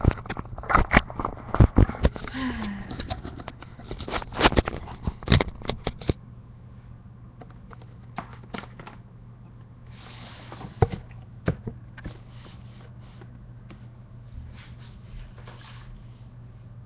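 Handling noise from a webcam being taken down and re-mounted: a dense run of clicks, knocks and rustles for about six seconds, then a few scattered clicks and scrapes.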